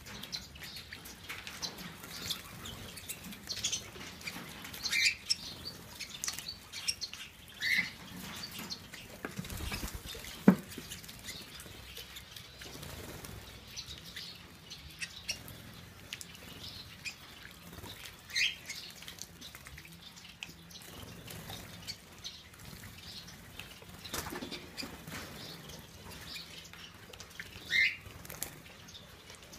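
Budgerigars bathing in a shallow water dish: wings flapping and water splashing, with a few short chirps now and then. A single sharp knock about ten seconds in is the loudest sound.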